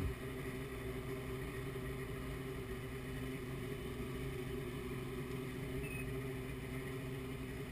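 Mercury 175 hp two-stroke oil-injected XR2 outboard powerhead driving a Mercury Sport Jet pump. It runs steadily at low throttle with no revving while the boat is turned during a low-speed steering check.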